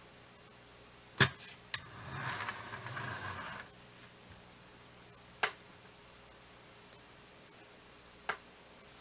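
Four sharp clicks or taps, spread out, and a rustling scrape lasting about a second and a half soon after the first two.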